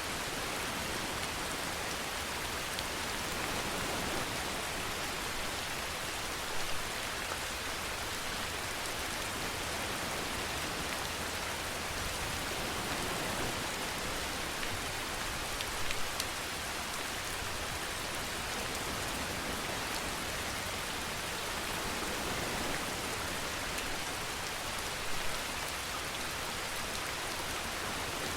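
Steady rain falling, an even hiss, with a few brief louder drops now and then.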